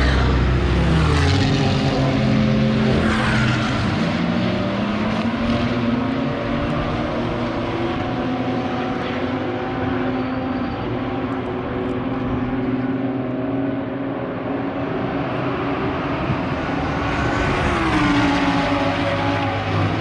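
Engines of track-day cars running at speed. An engine's pitch rises through the revs a second or so in, a steady engine note carries through the middle, and near the end a car passes with its pitch dropping.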